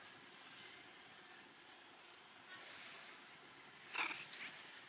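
Steady high-pitched drone of insects, such as cicadas or crickets, over faint outdoor hiss, broken about four seconds in by a brief sharp squeak and a smaller one just after.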